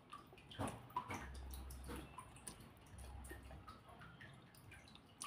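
Quiet eating sounds from a person eating rice and tofu by hand: scattered wet mouth clicks and smacks from chewing, the strongest about half a second to a second in.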